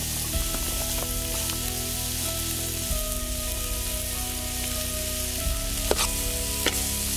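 Chopped red onions sizzling in hot oil in a large aluminium pot, with a few scrapes and knocks of stirring against the pot near the end.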